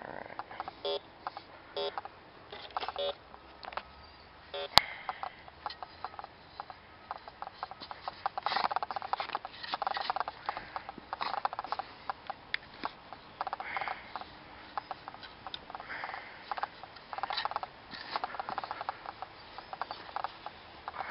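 Bounty Hunter 3300 metal detector giving short, evenly spaced beeps over a buried metal target, then a sharp click about five seconds in. After that, a digging tool scrapes into the soil again and again.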